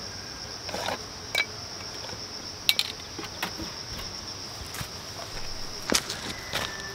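Steady high-pitched chorus of insects. Over it come a few scattered clicks and knocks of gear being handled in a backpack.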